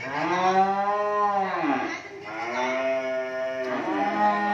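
Cattle mooing: three long, drawn-out moos one after another, each dropping in pitch at the end.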